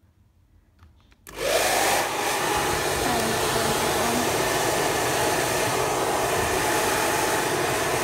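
A ghd hair dryer switched on about a second in, its motor spinning up with a quick rising whine into a loud, steady rush of air. It is blowing on a freezer's frosted-over evaporator coil to melt the ice that is blocking it.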